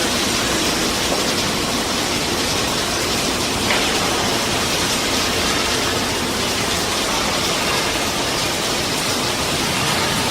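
Busellato pod-and-rail CNC machine running, a steady loud rushing noise, with a brief click a little over three and a half seconds in.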